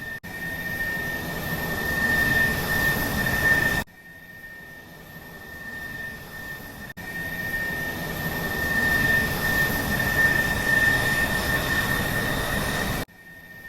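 Jet airliner engine sound effect: a steady rumble with a constant high whine, spliced together with abrupt cuts, dropping away sharply about four seconds in and again near the end.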